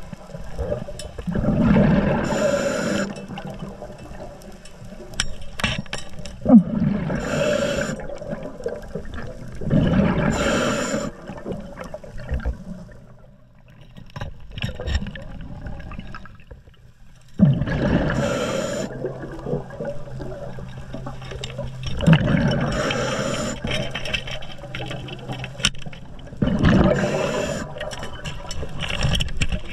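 Scuba diver breathing through a regulator underwater: bubbles rush out in a burst about every four to five seconds, with a pause in the middle and a faint steady low hum underneath.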